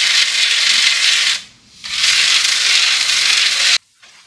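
Garden hose spray nozzle hissing as it rinses wheel cleaner off a wheel and tire, in two long sprays with a short break about a second and a half in, cutting off suddenly near the end.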